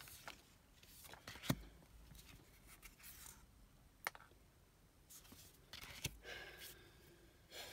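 Tarot cards being handled: cards slid off the decks and set down, giving soft rustles and about three sharp taps.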